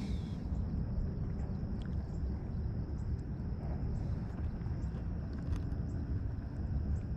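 Outdoor lakeside ambience: a steady low rumble of wind on the microphone, with a thin, steady high-pitched drone and a few faint ticks.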